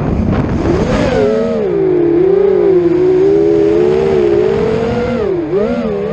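FPV quadcopter's electric motors and propellers whining, the pitch rising and falling as the throttle changes. A rush of noise opens it as the quad dives, and the pitch dips briefly and climbs again about five and a half seconds in.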